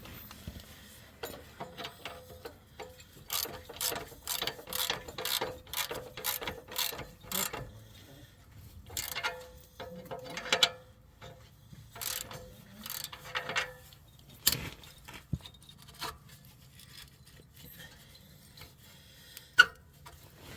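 Ratchet wrench clicking in quick runs of strokes, tightening the nut on an exhaust pipe clamp. After about 14 seconds the clicking stops, leaving a few scattered knocks and one sharp knock near the end.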